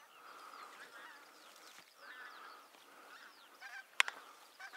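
Geese honking, many calls overlapping again and again, with one sharp crack about four seconds in.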